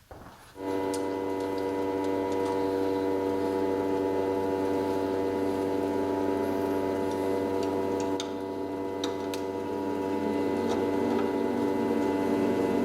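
Metal lathe starting up and running at a steady speed, its motor and gear train giving a constant droning hum, with scattered light ticks over it.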